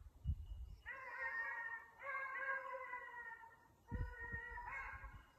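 A hunting hound baying in long drawn-out notes, three in a row each about a second long, as hounds do when running a hare's scent. A short low thump comes near the start, the loudest moment.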